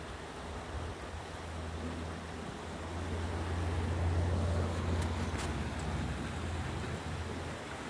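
Shallow river running over a stony bed, a steady rushing noise, with a low rumble of wind on the microphone that swells in the middle.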